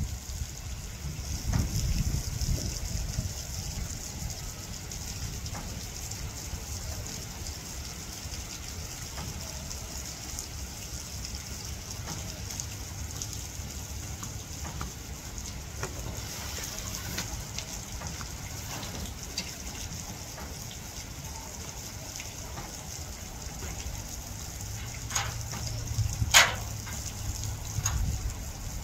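Dogs wading and swimming in a shallow pond, water sloshing and splashing around them, with a sharper splash near the end. Wind rumbles on the microphone, and a steady high hiss runs underneath.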